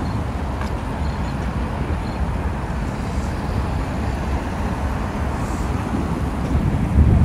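Road traffic at a busy city intersection: cars and taxis driving past, a steady wash of engine and tyre noise. A louder low rumble comes just before the end.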